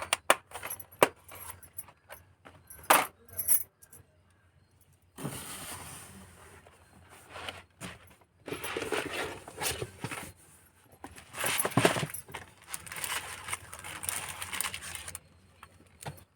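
One-gram gold jada hair ornaments being handled: a few sharp metallic clinks in the first few seconds, then, after a short pause, long stretches of jingling and rustling as the pieces and their packaging are moved about.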